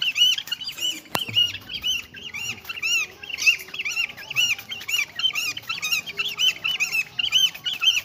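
Tame black cormorant begging for fish with a steady run of short, high squeaky calls, about three to four a second, as it flaps its wings at the hand feeding it. A single sharp click about a second in.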